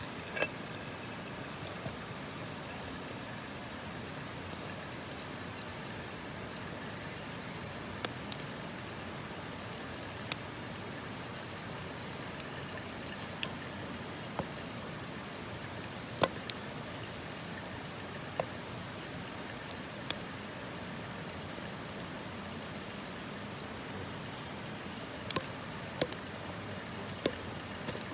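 Wood campfire crackling, with sharp pops scattered irregularly over a steady rushing background noise.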